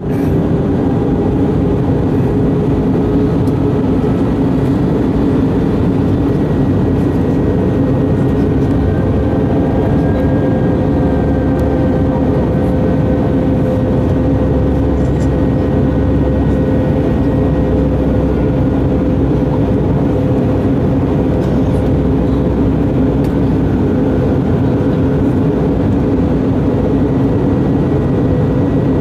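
Steady engine and airflow noise of an airliner heard from inside the passenger cabin in flight, an even drone carrying a couple of constant low hums.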